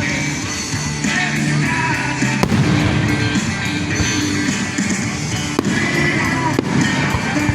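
Music playing through a nearby sound system, with a few sharp firework bangs cutting through it, about two and a half seconds in and again twice near the end.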